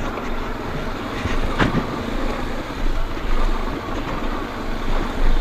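Royal Enfield Himalayan's single-cylinder engine running as the motorcycle rides over a rocky dirt trail, with a few sharp knocks as it jolts over the stones.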